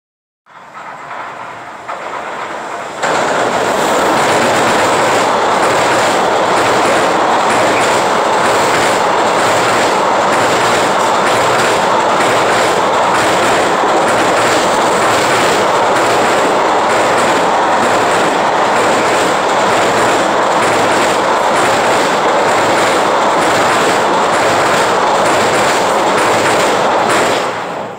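Freight train crossing a steel girder railway bridge overhead, heard from underneath: a loud, steady din from the steel deck with regular clacking of the wagons' wheels over the rail joints. It builds over the first seconds, jumps to full loudness about three seconds in, and falls away sharply near the end.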